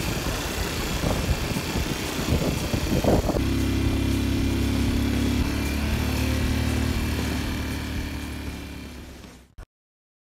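ATV engine running while being ridden: rough, uneven noise for the first few seconds, then a steady low engine hum. The sound fades out and cuts to silence near the end.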